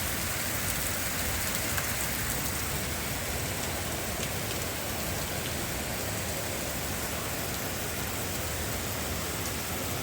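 Rain falling steadily: an even hiss with a few sharper drop ticks here and there.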